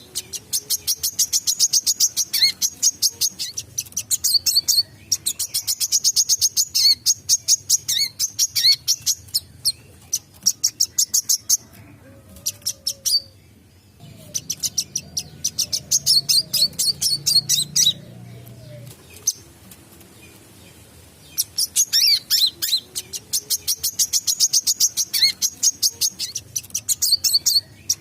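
Wiceh (a sunbird kept as a cage songbird) singing in fast, rattling runs of sharp high notes. Each run lasts a few seconds, with short pauses between them and a longer lull a little past the middle.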